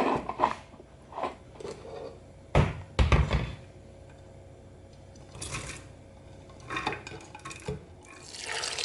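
Dishes and utensils clinking and knocking as kitchenware is handled, with a couple of heavier thuds about two and a half and three seconds in.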